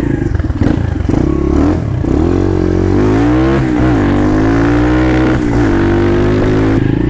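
RXF 125 Free Ride mini trail bike's 125 cc four-stroke single-cylinder engine accelerating as it is ridden off, pitch climbing, then falling sharply at two gear changes, roughly halfway through and again near the end, and climbing again.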